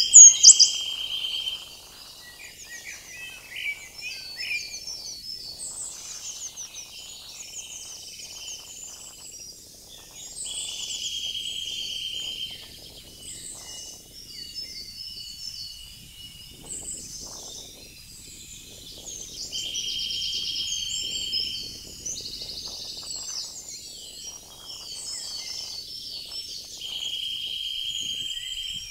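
Several songbirds singing together in spring woodland, with many overlapping chirps and warbles. One bird repeats a dry, even trill of about a second and a half roughly every nine seconds. A loud, sharp call comes near the start.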